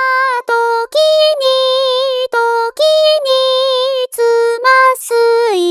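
A high singing voice, unaccompanied, holding notes with a steady vibrato in short phrases separated by brief breaks, dropping to a lower note near the end.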